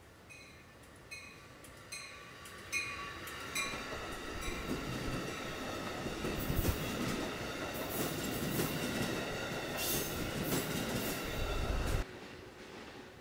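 Amtrak passenger train passing at speed. It opens with rhythmic ringing clicks of wheels over the rails, about two a second. Then a loud rumble and rush of the coaches builds and cuts off suddenly near the end.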